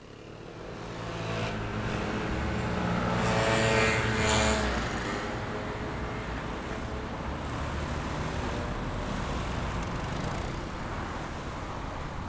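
City street traffic: a steady wash of passing cars, rising from quiet at the start. One vehicle's engine passes close, loudest about four seconds in, then fades back into the general traffic noise.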